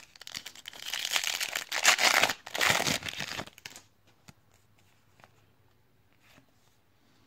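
Foil wrapper of a trading card pack being torn open and crinkled for about three and a half seconds, then a few faint taps of cards being handled.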